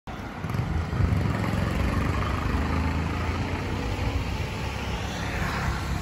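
Road traffic: a motor vehicle's engine running close by as a steady low rumble, with a wider hiss swelling about five seconds in as a vehicle passes.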